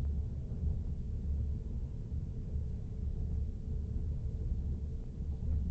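Low, steady rumble of a moving passenger train heard from inside the carriage.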